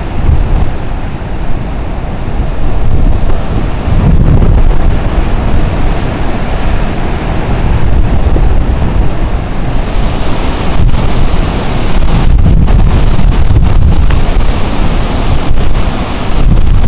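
Hurricane-force wind buffeting the microphone in loud, gusting rushes over the steady roar of heavy storm surf breaking on the shore.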